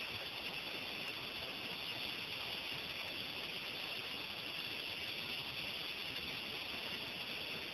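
Steady, even outdoor hiss at dawn by the sea, brightest in the upper range, with no distinct events.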